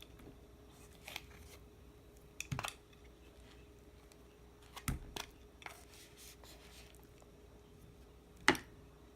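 Kitchen prep handling sounds: a handful of separate short clicks and knocks, the loudest near the end, over a faint steady hum.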